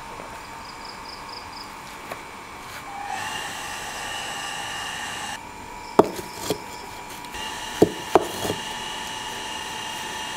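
Bricks being set down and knocked into place across the mouth of a brick oven, with sharp clunks about six seconds in and a quick cluster of three or four more around eight seconds. Steady high tones run underneath.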